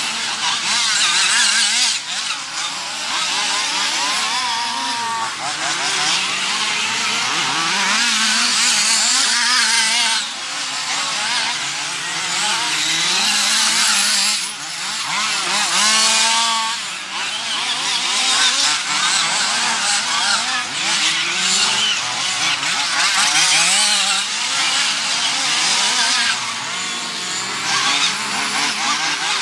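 Several 1:8 scale RC off-road buggies racing, their small nitro engines buzzing at high revs and rising and falling in pitch as they accelerate and brake through the corners.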